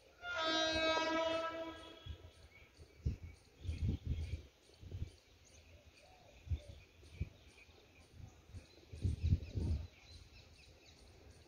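An approaching WAG-9 electric locomotive sounds its horn: one steady single-tone blast of about two seconds at the start, then fades to faint low rumbles in the background.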